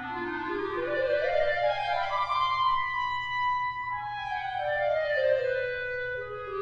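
A single reedy musical tone sliding smoothly up in pitch for about two and a half seconds, holding for a moment, then sliding back down near the end, over a steady low hum.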